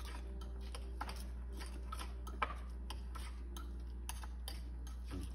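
A utensil clicking against a bowl as diced carrot and potato are stirred into a chickpea-flour batter: irregular light clicks, several a second, with one sharper click about two and a half seconds in.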